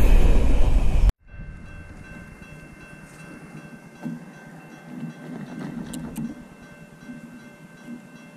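Freight train cars rolling past loudly on the rails, cut off suddenly about a second in. After that comes a much quieter stretch with faint steady high tones and soft low swells.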